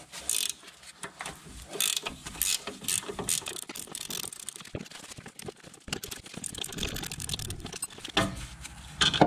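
Ratchet spanner clicking in quick runs as the 17 mm nut is wound off a van's front anti-roll bar drop link, with a louder metallic clack near the end.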